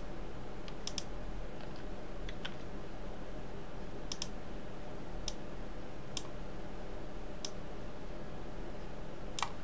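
Scattered clicks of a computer mouse and keyboard, about nine single sharp clicks spaced unevenly, over a steady low hum.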